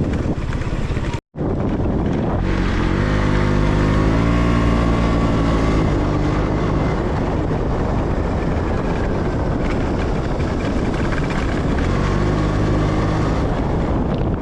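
Motorcycle engine speeding up, its pitch rising, then running steadily with wind rushing over the microphone; it speeds up again near the end. A brief dropout to silence about a second in.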